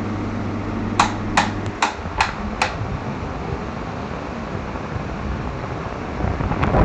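Split AC indoor unit's swing (louvre) motor making sharp clacking knocks, five in quick succession about two and a half a second, over the unit's steady running hum. The rattle comes from the swing motor's lock not being seated properly. Near the end a louder rushing noise starts.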